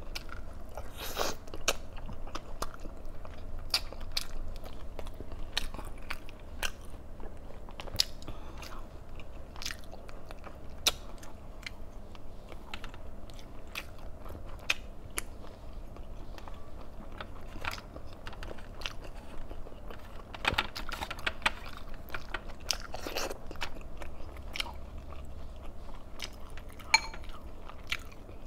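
Close-miked chewing and biting of food, with scattered crunches and many sharp clicks.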